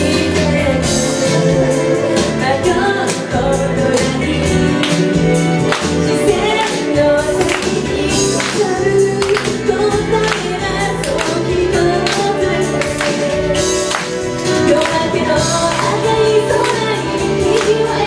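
A woman singing into a microphone over loud amplified music with a steady beat.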